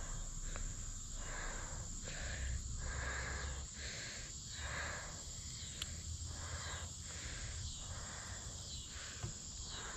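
Insects chirring steadily, a constant high-pitched drone with a softer, lower pulsing call repeating about twice a second.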